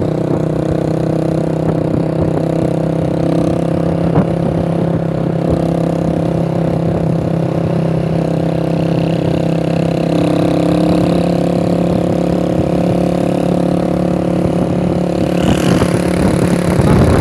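Small motorcycle engine running steadily at road speed, heard from on the moving bike, with wind rumbling on the microphone. The noise grows louder near the end.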